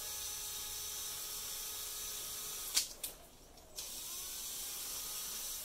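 Electric drill with a mixing paddle running at low speed, about 500 rpm, stirring freshly combined epoxy resin and hardener. It stops with a sharp click about three seconds in, starts again about a second later, and stops again with a click near the end.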